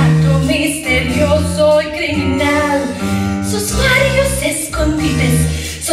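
Musical theatre song with band accompaniment, held low notes under a female singing voice.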